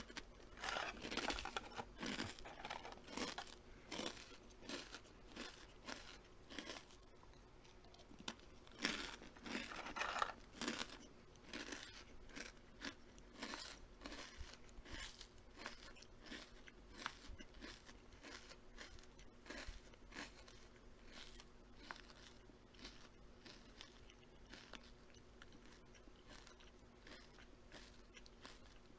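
Close-up crunching and chewing as food is bitten and eaten: a run of short, crisp crunches, densest and loudest in the first ten seconds or so, then sparser and fainter.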